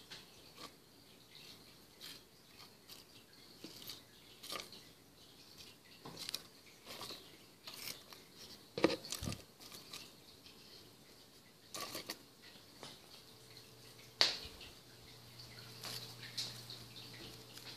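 Scattered light clicks, taps and rustles of a plastic tub being handled and the dry leaves inside it being poked, with a sharper knock about halfway through and another, louder one near the end.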